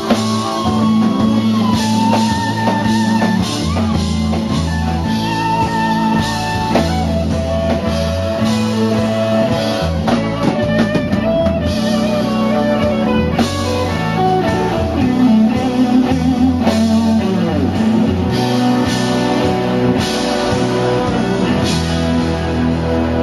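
Music: an instrumental stretch of a slow blues song, with guitar lines over bass and drums.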